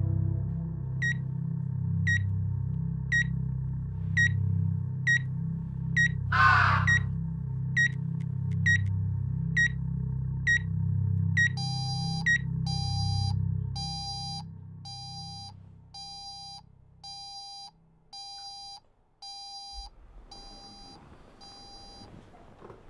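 Electronic patient-monitor beeping about twice a second over a low pulsing drone, with a raven's caw about six seconds in. About halfway through, the beep changes into an alarm clock's electronic beeping at the same pace, and the drone drops out about two thirds of the way through.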